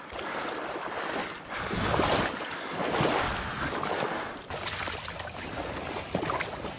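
Shallow marsh water sloshing and splashing as a dog swims close by, swelling louder a couple of times. About two-thirds of the way in it gives way to a steadier, quieter swish of water as a person wades through it.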